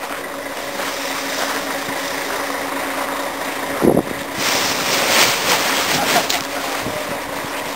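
Wind blowing across the microphone as a steady hiss, gusting louder for a couple of seconds after a brief knock about halfway through.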